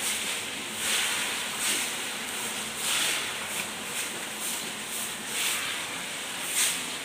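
Hot oil in a large wok sizzling as tofu deep-fries, the hiss swelling in surges about every one to one and a half seconds.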